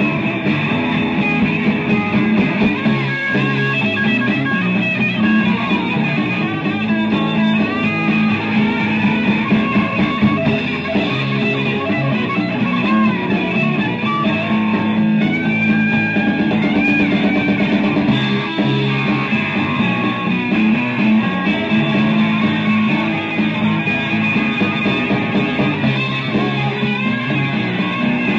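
Instrumental rock music from a band, an electric guitar leading over a bass line, playing steadily with no singing.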